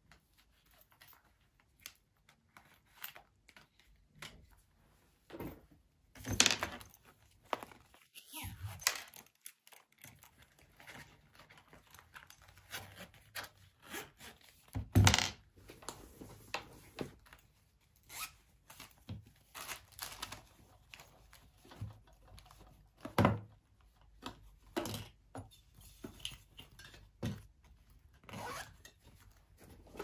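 Small items being handled and packed into a black fabric handbag: rustling of fabric and packaging with scattered clicks and taps, and a few louder knocks as things go in.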